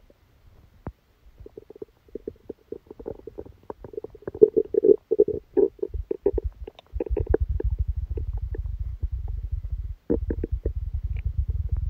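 Human stomach and intestines rumbling during a stomachache after a large meal: first a run of bubbly, crackling gurgles, then a long low growl that breaks off briefly and resumes before stopping near the end.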